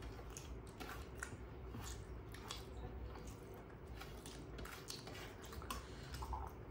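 Faint eating sounds from two people eating rice and curry by hand: chewing and fingers squishing rice against steel plates, heard as irregular soft clicks.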